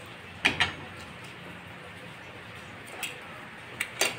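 Sharp plastic clicks from a quartz clock movement's case being pried apart with tweezers: a quick double click about half a second in, then a few more clicks near the end as the case cover is set down on the wooden table.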